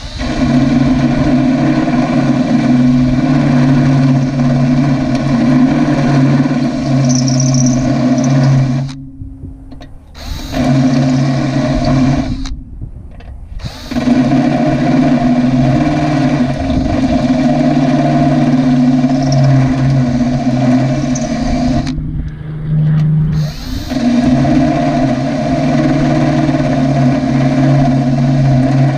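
Electric drill running steadily under load while drilling a pilot hole through metal, stopping briefly three times, about 9, 12 and 22 seconds in, before starting again.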